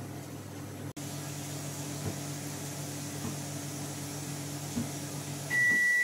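Samsung microwave oven running with a steady low hum, which stops about five and a half seconds in. A loud high beep then sounds as the cooking cycle ends.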